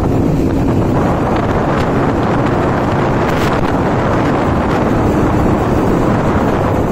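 Wind rushing over the microphone of a moving motorcycle, with its engine running steadily underneath.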